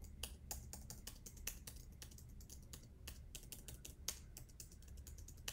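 Faint, quick clicking of computer keyboard keys, tapped repeatedly at an uneven pace of several taps a second.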